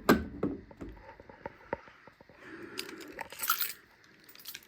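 Plastic light lens cover of a Craftsman garage door opener being handled and opened: a sharp snap at the start, a run of small clicks, then a rustling, crackling scrape about three and a half seconds in.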